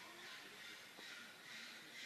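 Near silence: faint outdoor background with a high hiss that swells and fades about once a second.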